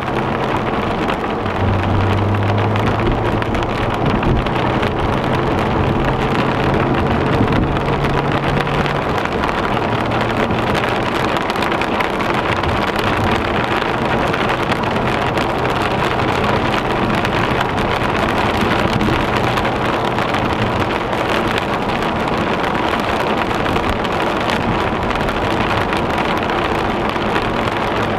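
Heavy rain drumming on a moving car and hissing tyres on a flooded road, heard from inside the car, with a low engine hum that fades in and out.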